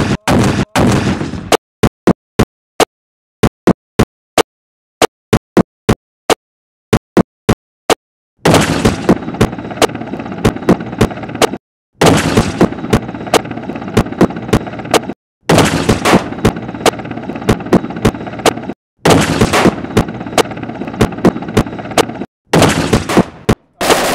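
Weapons firing in a cut-together sequence: a loud rocket-launcher blast at the start that fades over about a second and a half, then a long run of single sharp gunshots at a fairly even pace. Four stretches of a few seconds each of rapid, continuous firing break the run, and each stops abruptly.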